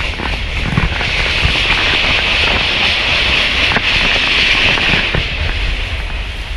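PeruRail train running along the track, heard from inside the carriage: a steady low rumble with rattling and clicks from the wheels, and a hissing rail noise that swells about a second in and eases off near the end.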